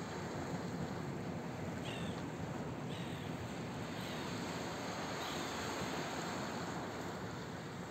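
Steady rush of wind and surf along a rocky shore, with four short high calls from gulls, about a second apart, in the middle of the stretch.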